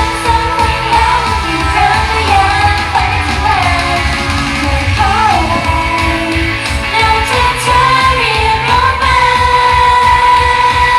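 Thai pop song played loud over a hall's PA, a female voice singing the melody over a heavy steady beat.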